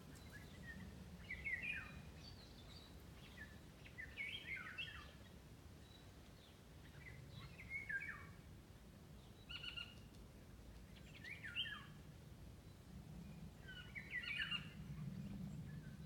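A songbird singing a short warbled phrase of quick falling notes, repeated about every three seconds, five times in all, with a few softer notes between phrases. A faint low hum runs underneath.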